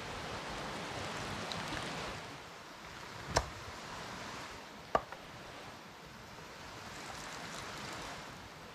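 A steady rushing background that swells and fades, broken by two sharp knocks about a second and a half apart.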